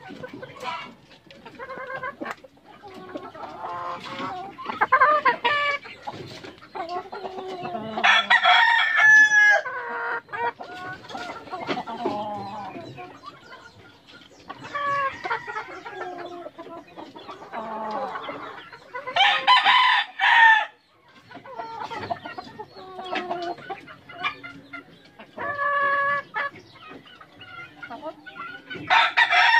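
Gamefowl roosters crowing three times, about ten seconds apart, with chickens clucking and calling in between.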